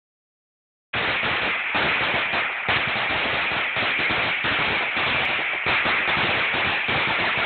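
A 2000-count string of firecrackers going off in a dense, unbroken rapid crackle of small bangs, starting abruptly about a second in.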